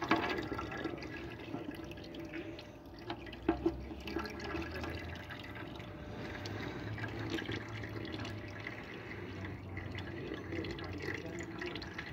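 Used engine oil trickling and dripping from the open sump drain hole of a Renault Kangoo 1.5 into a drain pan: the last of the oil draining out before the plug goes back in. A couple of sharp knocks about three and a half seconds in.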